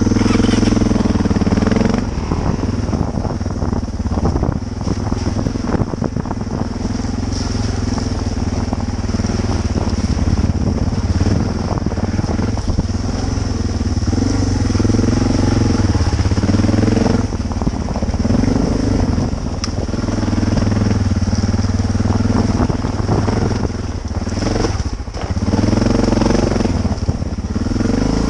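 Single-cylinder Suzuki dual-sport motorcycle engine riding a rough forest trail, the revs rising and falling over and over with the throttle. Knocks and rattles from the bike run through it as it goes over rocks and ruts.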